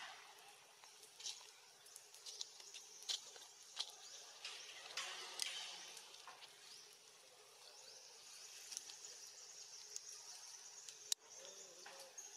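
Faint forest ambience: a steady high-pitched insect drone that grows stronger about halfway through, with scattered soft clicks and rustles and one sharp click near the end.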